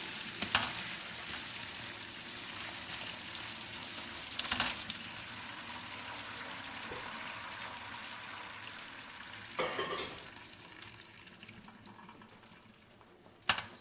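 Steady watery hiss of boiled cauliflower draining in a strainer, fading after about ten seconds, with three short knocks of the pot or strainer.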